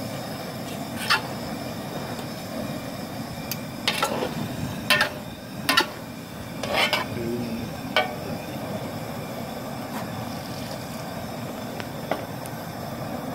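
A long metal spoon stirring a thick stew in a large pot, with irregular scrapes and knocks of metal against the pot, about six over the stretch. Underneath is the steady rush of the propane burner heating the pot.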